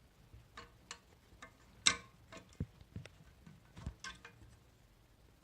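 Irregular clicks and taps of small metal parts in an electronic safe's lock mechanism being handled and worked loose, the sharpest click a little under two seconds in.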